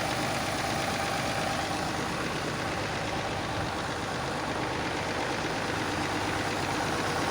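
An engine idling steadily, with an even, fast low pulsing.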